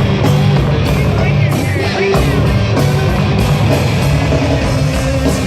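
Live rock band playing loud, with a heavy bass line and drums with cymbals, plus sliding guitar notes.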